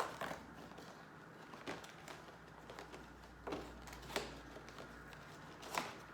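Cardboard and plastic handling as a LEGO advent calendar door is opened and its contents taken out: a handful of light, sharp clicks and crinkles spread over a few seconds.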